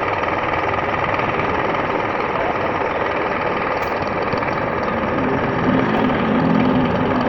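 A machine running steadily, with a louder low hum joining about five and a half seconds in.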